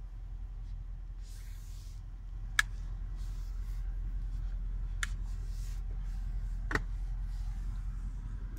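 Steady low hum in a Range Rover SV Autobiography's cabin, with three sharp clicks about two and a half, five and seven seconds in, from the rear centre console and armrest compartment being handled.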